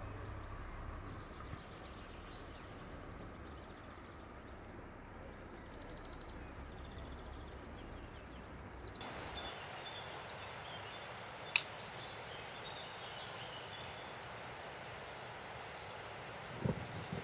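Faint outdoor ambience: a soft, steady hiss with a few short, high bird chirps, more of them after about nine seconds, and one sharp click midway.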